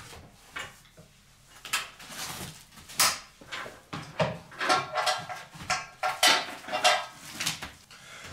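Plastic footrests and foot straps of a SportPlus SP-MR-020 rowing machine clicking and rattling as feet are strapped in: a string of irregular knocks and scrapes.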